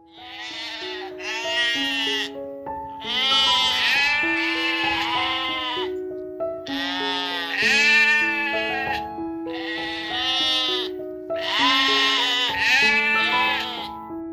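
Bleating farm animal calling repeatedly, about six wavering, quavering bleats in a row, over background music with a plain melody.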